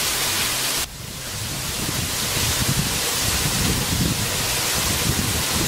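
Steady rush of waterfalls pouring down the rock face beside a railway tunnel mouth. The sound cuts off about a second in and a second stretch of rushing water starts, slowly growing louder.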